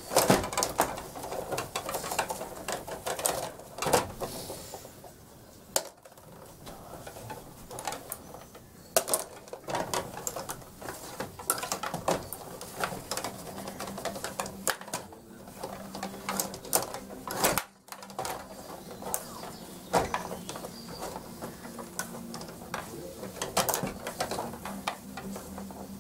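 Stiga table hockey game in fast play: a dense, uneven clatter of the rods being pushed and spun, with sharper knocks from the puck and plastic players striking one another.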